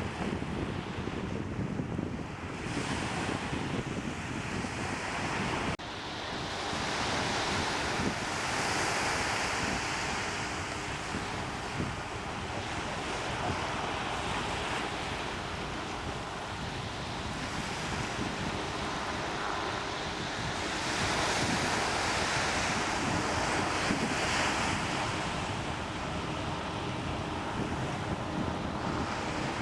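Wind rumbling on the microphone over the steady wash of waves on the bay, the water noise swelling louder twice.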